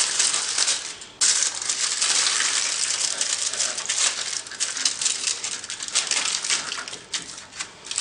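Aluminium foil crinkling and crackling as it is pressed and folded over a piece of cork, with a brief break about a second in.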